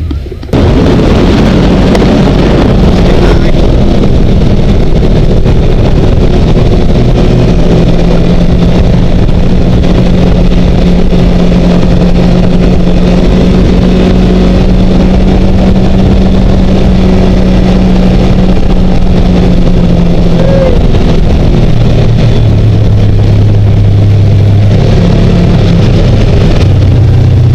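Side-by-side UTV engine running steadily at speed while towing, under loud road and wind noise. Its pitch drops about two-thirds of the way through.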